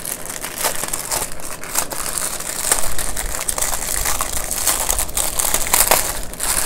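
Clear plastic bag of diamond-painting drill packets crinkling as it is handled, with irregular crackles throughout.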